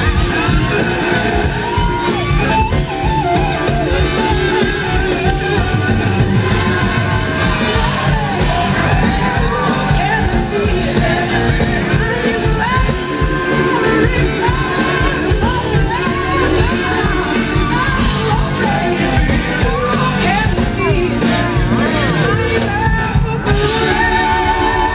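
Live blues-rock band playing loudly: a woman sings lead over electric guitars, drums and saxophone, with whoops and shouts from the audience.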